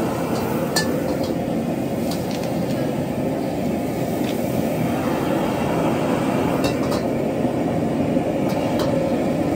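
Stir-frying in a wok over a high-flame gas burner: a steady low rushing of the burner and frying, with a few sharp clinks of the metal ladle against the wok.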